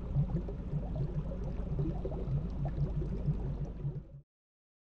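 Aquarium water ambience: bubbling and gurgling water over a low steady hum, cutting off suddenly about four seconds in.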